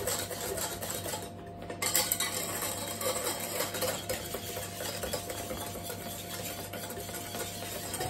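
Wooden spoon stirring egg-yolk and sugar-syrup custard in a small stainless steel saucepan, in continuous quick strokes that scrape against the pan. The custard is being stirred constantly as it cooks on the heat, until it thickens.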